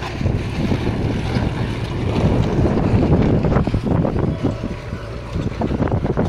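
JCB 3DX backhoe loader's four-cylinder diesel engine running under load as it digs and loads soil into a tractor trolley, with a few knocks. Wind buffets the microphone.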